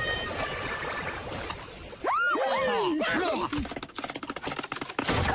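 Cartoon sound effects. About two seconds in come squealing, rising-and-falling cries from a cartoon animal character, then a fast run of clicks and a loud noisy burst near the end.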